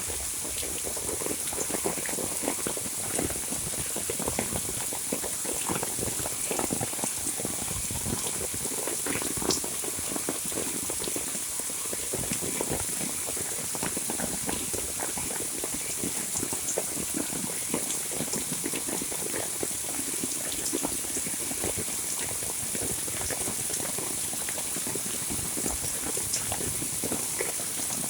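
Heavy monsoon rain falling steadily: many close, separate drops splashing over a continuous rush, with a steady high hiss above.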